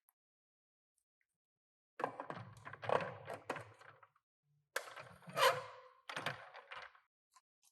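Toy handling: small die-cast and plastic pieces clattering and clicking in two bouts, about two seconds in and again about five seconds in.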